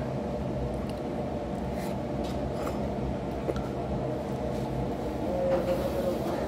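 Eating noodles with chopsticks: faint clicks and chewing over a steady low hum.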